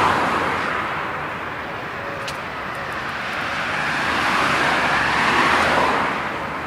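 Road traffic noise: tyre and engine rush of cars that swells near the start, eases off, then swells again about five seconds in, as vehicles pass.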